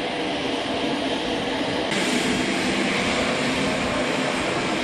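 Steady vehicle engine noise as the ambulances drive by. About two seconds in it steps up suddenly to louder, hissing engine noise from the military transport plane's propeller engines running on the apron.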